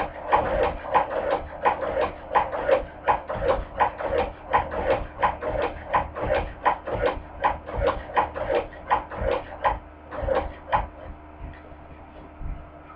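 Hand-crank cobbler sewing machine stitching, its needle mechanism clacking at about three stitches a second, then stopping about eleven seconds in.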